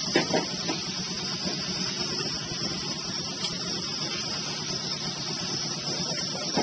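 A motor running steadily, with two or three short knocks just after the start.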